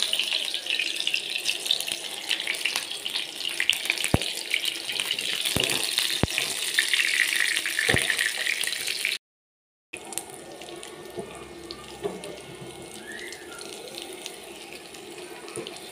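Shami kababs frying in oil in a nonstick frying pan: a steady, crackling sizzle with a few sharp clicks. It cuts out for a moment about nine seconds in and comes back quieter.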